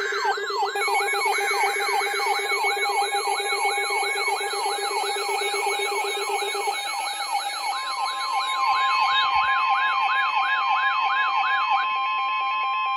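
Electronic emergency alert tones: a siren-like tone falling in pitch over and over, about three times a second, over steady electronic tones. A single steady tone joins about eight seconds in and holds on after the falling tone stops near the end.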